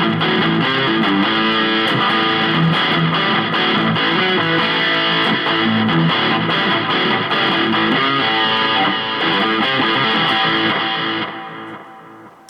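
Electric guitar with P90 pickups, a slimline Telecaster-style, played through an amp: a steady run of strummed chords and picked riffs that stops about eleven seconds in and rings out.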